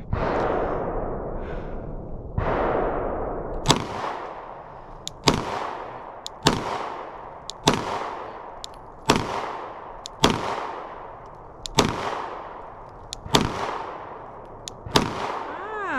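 A Glock 19 9mm pistol fired in a slow string of about ten shots, roughly one every second and a half, each shot with a long echoing tail. After some of the shots comes a faint metallic ping from a bullet hitting the steel target.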